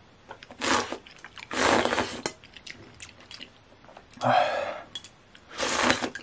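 Hot noodle soup slurped straight from the bowl: four short, noisy slurps, the longest about two seconds in.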